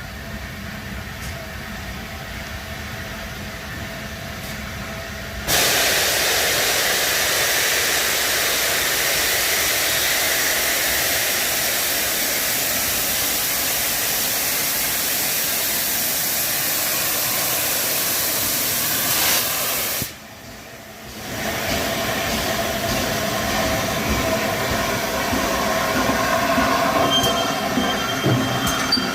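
Steam locomotive with a loud, steady hiss of escaping steam that starts suddenly and runs for about fifteen seconds before cutting off abruptly. The train then runs on with high-pitched wheel squeal near the end.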